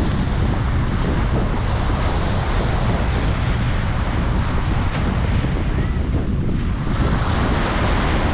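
Ocean surf washing continuously onto a beach, with wind rumbling on the microphone. The wash thins briefly and then swells again with a fresh wave about seven seconds in.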